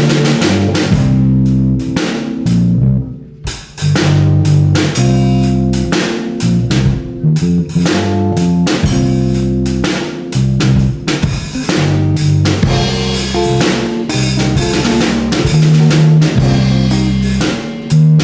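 Background music: a band track with drum kit and guitar over a steady bass line, briefly dropping away about three seconds in.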